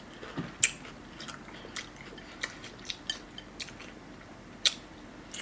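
Close-miked chewing of food, with sharp, wet mouth clicks and smacks every half second or so; the loudest come about half a second in and near the end.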